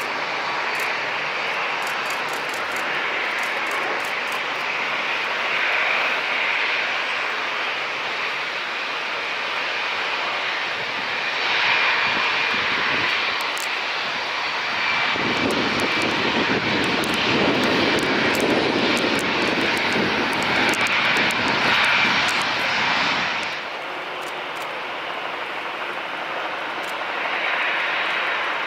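Boeing 757 jet engines on approach and landing: a steady engine noise that grows into a louder, deeper rumble during the landing rollout on the wet runway, then cuts off abruptly. A quieter airliner's engine noise follows, swelling near the end as an Airbus A380 approaches.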